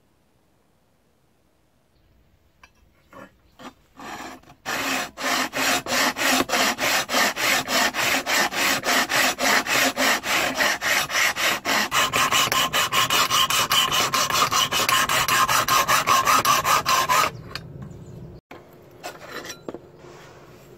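Hand file rasping back and forth along a steel knife blade made from old bearing steel: a few separate strokes, then rapid, even strokes at about three to four a second that stop suddenly near the end.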